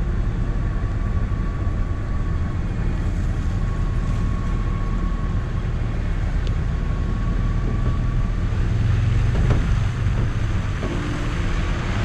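A four-wheel-drive vehicle driving, its engine and running gear making a steady low rumble, with a faint steady whine.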